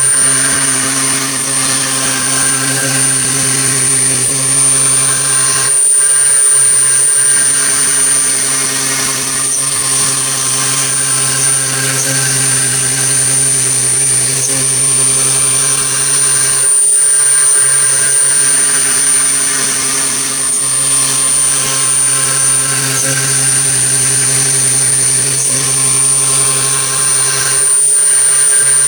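Blue Elephant ES3-3015 stone CNC machining center running under test: a loud, steady mechanical drone with a constant high-pitched whine over a low hum, dipping briefly three or four times.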